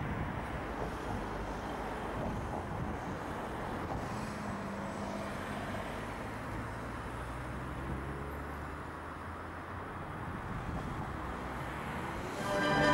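Steady outdoor background noise, a low rumble like distant road traffic. Music fades in just before the end.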